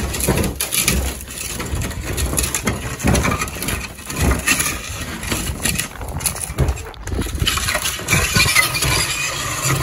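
A wheeled plastic garbage cart rolled over frozen concrete and snow: its wheels rumble and clatter with many small knocks, and a higher scraping grows louder about three quarters of the way through.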